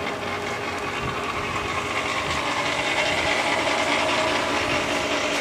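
Steady mechanical hum and whir of a running machine, with several steady tones over an even noise.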